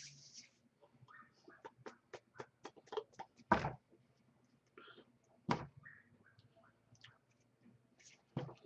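Hands tapping and slapping together during sign language: a quick run of light taps, then single louder slaps about three and a half, five and a half and eight and a half seconds in.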